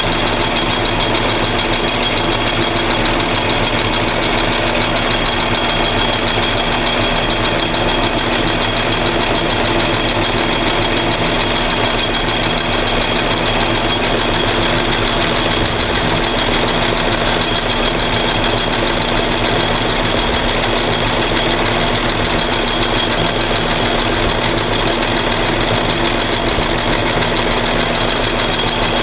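Metal lathe running under power with its chuck spinning as a turning tool takes a pass, reducing a shoulder on a small part. The sound is steady and unchanging, with several constant tones.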